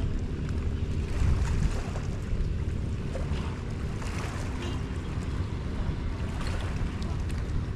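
Wind buffeting the microphone outdoors: a heavy, fluctuating low rumble with a lighter hiss over it.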